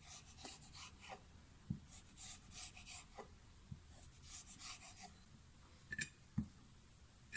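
Kitchen knife drawn through a thin sheet of stiff rolled dough, its blade scraping lightly on the wooden board in short repeated strokes, with a few soft knocks and a couple of sharper knocks near the end.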